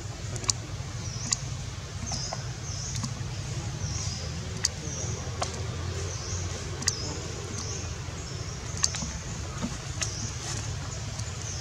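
Outdoor ambience: a steady low rumble, a short high chirp repeating about once a second, and scattered sharp clicks.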